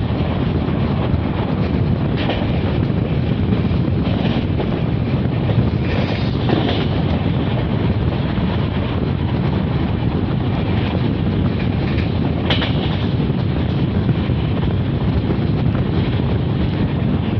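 Passenger train coaches running at speed on the track: a steady, loud rumble with wind buffeting the microphone. A few short, sharper clatters come through, the clearest about twelve and a half seconds in.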